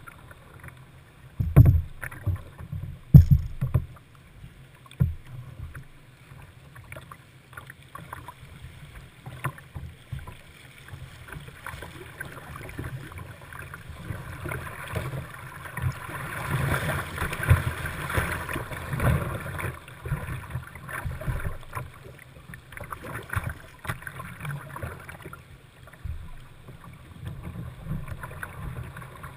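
River whitewater rushing and splashing around a whitewater kayak, picked up from the boat's own deck, with paddle strokes and water slapping the hull. Two loud thumps come about a second and a half and three seconds in, and the rush of the rapids swells for several seconds in the middle.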